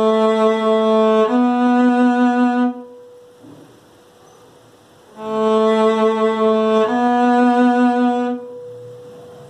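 Cello bowed: a two-note melodic interval, the open A string followed by a note a step higher. The pair is played twice, and each note rings on briefly after the bow stops.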